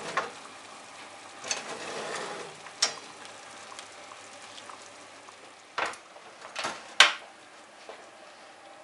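Baked navaga fish and potatoes sizzling on a hot baking tray pulled out of the oven, with several sharp metal knocks from the tray and oven rack being handled, the loudest about seven seconds in.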